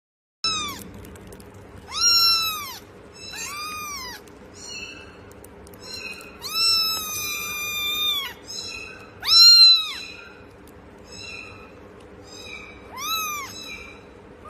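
A cat meowing over and over in high-pitched, arching calls, about a dozen in all. One long drawn-out meow comes around seven seconds in, and the loudest follows a couple of seconds later.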